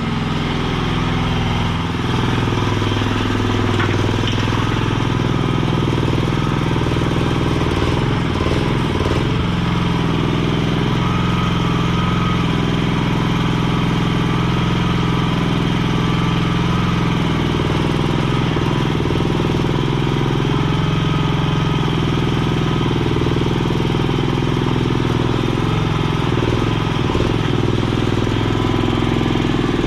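Chinese mini skid steer's small engine running steadily, with small shifts in pitch as it works.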